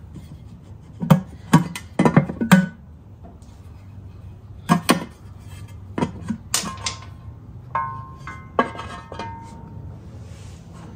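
Background music with a plucked guitar, and a scattering of sharp clicks and knocks, several in quick succession about two seconds in.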